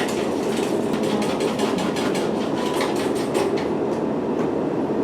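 A steady low rumble with a rapid, uneven clatter of clicks through the first three seconds or so, thinning out toward the end.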